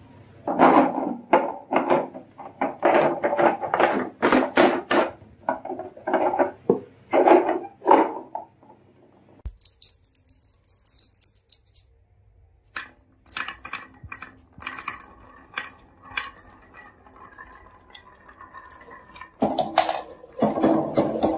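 Marbles rattling and clattering down a wooden HABA marble-run track in quick bursts. About nine seconds in the clatter cuts off, and a fainter, lighter rattle with a faint steady hum follows; loud clattering returns near the end.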